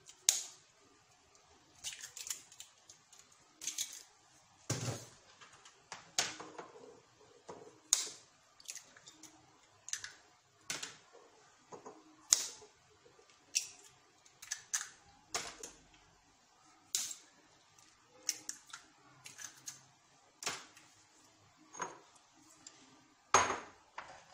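Eggs being cracked one after another on the rim of a ceramic bowl: repeated sharp taps and clicks of eggshell on ceramic, spaced a second or two apart and sometimes in quick clusters.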